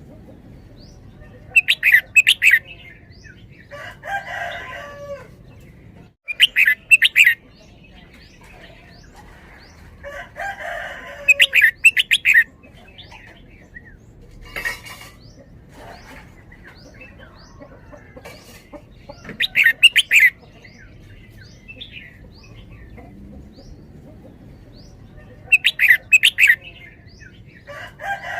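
A red-whiskered bulbul sings loud, quick song phrases about a second long, five times, several seconds apart. Between the phrases there are softer, lower calls.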